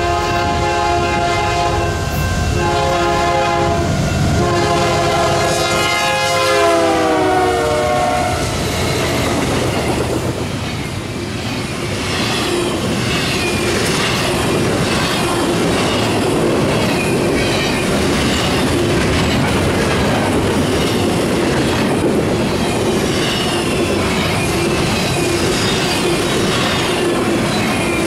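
Union Pacific GE ES44AC locomotive's air horn sounding with short breaks, its chord bending down in pitch as the locomotives pass and stopping about 8 seconds in. Then the double-stack container cars roll past with a steady rumble, repeated wheel clatter over the rail joints and a steady squeal.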